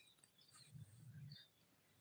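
Near silence: room tone with a few faint high chirps.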